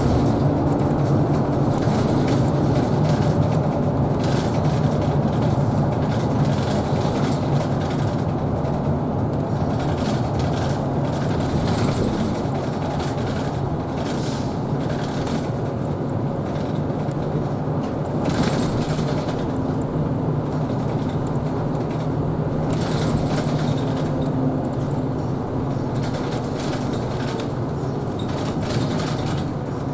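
Isuzu Erga Hybrid city bus driving along, heard from inside the cabin: a steady drivetrain hum under road noise, with a few brief rattles.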